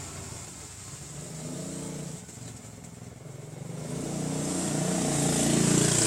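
A road vehicle driving past, its engine and tyre noise growing steadily louder over the last two seconds as it comes close.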